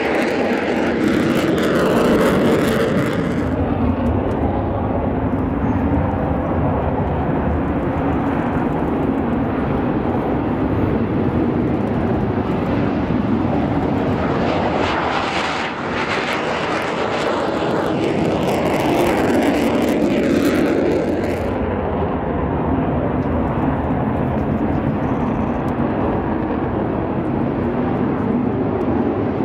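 Mitsubishi F-2 fighters' F110 turbofan jet engines heard as the jets fly low past, a loud continuous jet noise. It swells about two seconds in and again about two-thirds of the way through, with a brief dip just past halfway.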